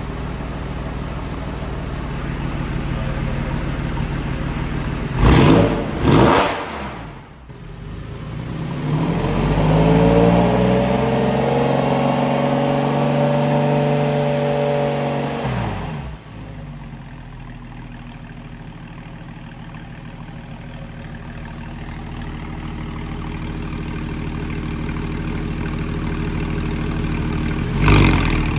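Porsche 997 Carrera S flat-six with an aftermarket Soul Performance exhaust idling, with two quick throttle blips about five seconds in. A longer rev follows, climbing in pitch, held for several seconds and dropping back to idle, and two more short blips come right at the end.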